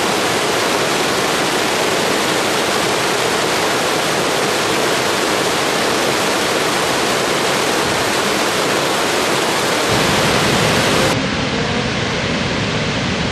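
Water rushing over rocks in a cascading stream, a steady loud hiss. About ten seconds in it turns deeper and duller as it changes to the sound of a large waterfall.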